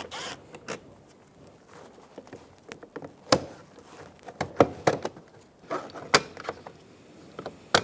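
Scattered sharp clicks and light knocks of hand tools and door parts being handled, a few seconds apart, the clearest about three seconds in.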